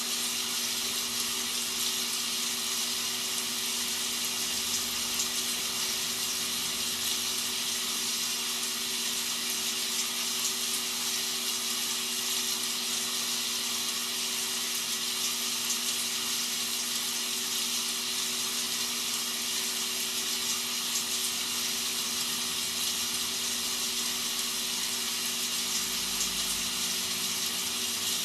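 Rain sound effect used as white noise: a steady hiss of rainfall with faint fine ticks, over a low steady hum.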